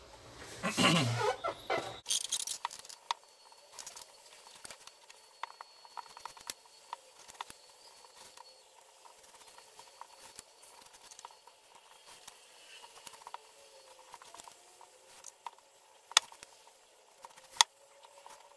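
Nylon paracord being woven by hand into a bracelet: soft rustling and sliding of the cord with many small scattered clicks and taps. There is a louder rustle in the first two seconds and two sharper ticks near the end.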